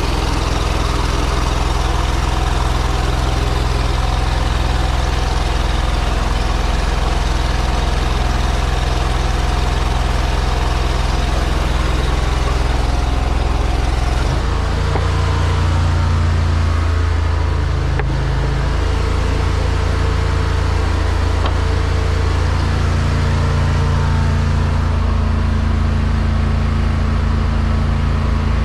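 High-pressure sewer jetter's engine running steadily under a broad hiss. About halfway through, its note shifts and grows stronger.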